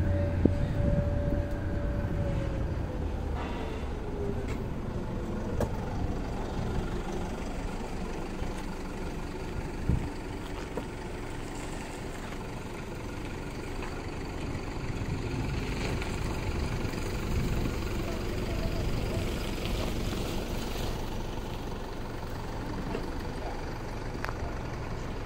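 Truck engine running, with a tone that falls in pitch about two to four seconds in. A single sharp knock comes about ten seconds in.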